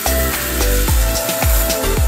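Electronic dance music with a steady kick drum, about two beats a second, under held synth notes.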